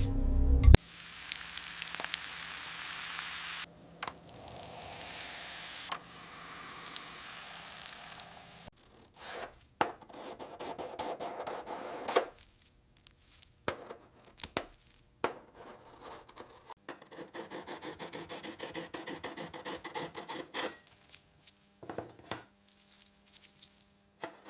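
Hand scraping, rubbing and sanding on a toy car during its restoration: a series of separate scraping passes with short pauses, then a run of quick back-and-forth sanding strokes, about five or six a second, past the middle.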